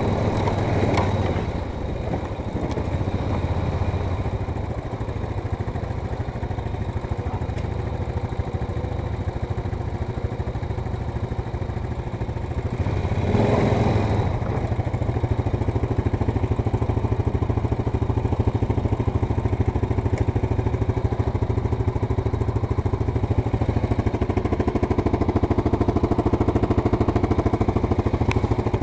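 ATV engine running at low speed and then idling steadily, with a brief louder surge about halfway through.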